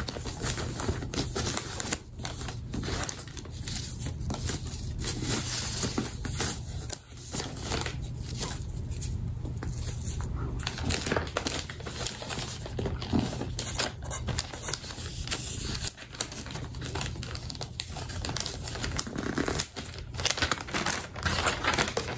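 Wrapping paper crinkling and rustling as a gift-wrapped box is unwrapped by hand, a continuous run of irregular crackles.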